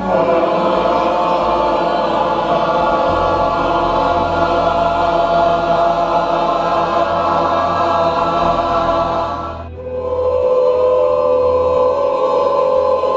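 A group of voices holding a long sung vowel together, breaking off briefly for a breath about three seconds before the end, then starting a second held tone at a lower pitch.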